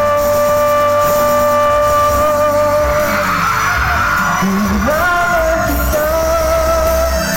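A man singing live through a PA sound system over amplified backing music, holding one long note, then sliding up into another held note about five seconds in. Yelling rises over the music in the middle.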